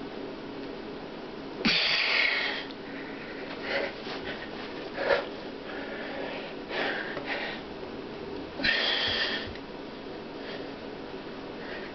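A man's forceful breathing as he strains to bend a wrench with his bare hands. There are two long, hard exhalations, about two seconds in and again near nine seconds, with shorter huffs between them.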